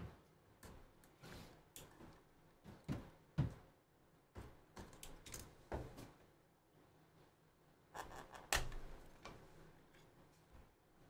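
Baseball trading cards and their plastic wrapper being handled on a tabletop: scattered light clicks, slides and rustles as the pack is opened and the cards are sorted, with a few sharper taps, the loudest about two-thirds of the way through.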